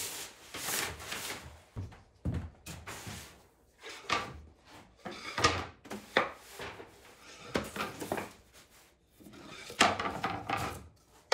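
Thin hardboard sheets being slid, shuffled and set down on a bench, making a series of irregular wooden knocks and short scraping rubs.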